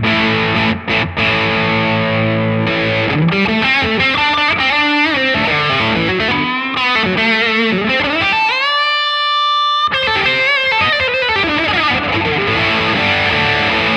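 Electric guitar played through a Laney Lionheart Foundry 60-watt amp, with the gain turned up and a small boost overdrive pedal in front, giving a mildly overdriven lead tone. It holds chords for the first few seconds, then plays single-note lead runs; around nine seconds in, one note is bent up and held for about a second.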